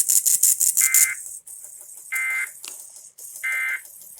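Emergency Alert System end-of-message data bursts: three short, raspy digital chirps about a second and a half apart, marking the end of the test. A pulsing high hiss runs under them and is loudest in the first second.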